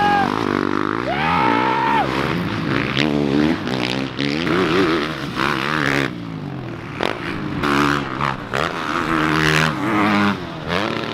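Several motocross dirt bike engines revving up and down over and over as the bikes accelerate, shift and pass on the track.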